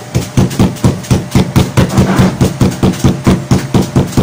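Glass jar pounded down on a plastic bag of Cremeo cookies on a table, crushing them to crumbs: a steady run of sharp knocks, about four to five a second.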